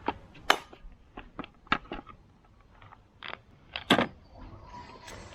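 Scattered clicks and taps of hand tools and the chainsaw's plastic parts being handled, about a dozen sharp ticks with a louder knock about half a second in and another just before the end.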